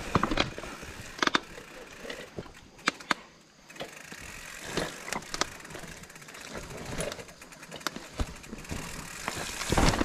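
Mountain bike on a rough trail: a steady rolling noise with many irregular clatters and knocks as the bike goes over bumps, easing off briefly about three and a half seconds in.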